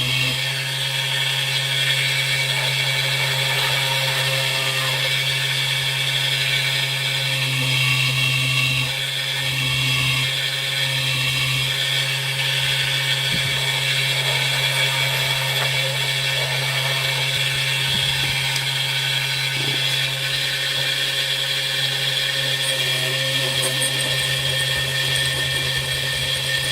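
Small handheld rotary power tool running steadily at constant speed while taking a little more material off a piece of brass rod.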